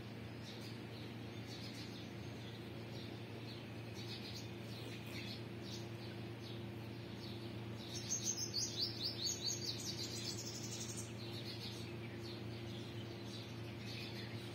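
Chicks peeping: short, high, falling peeps scattered throughout, with a fast run of louder chirps about eight seconds in lasting some three seconds. A steady low hum lies underneath.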